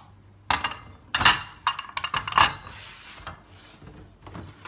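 Plastic mixing bowls handled on a stainless-steel worktop: a few knocks and clatters in the first two and a half seconds, a short scraping slide about three seconds in, then a couple of light taps.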